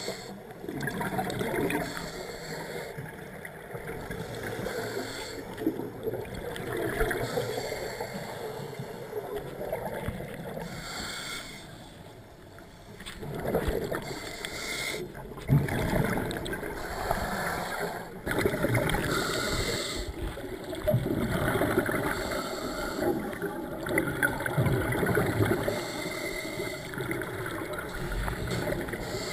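Scuba diver breathing through a regulator underwater: a hissing inhale recurs every few seconds, and the exhales come out as bubbling, gurgling rumbles.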